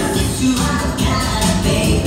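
Upbeat pop dance song with a sung vocal over a steady beat, about two beats a second.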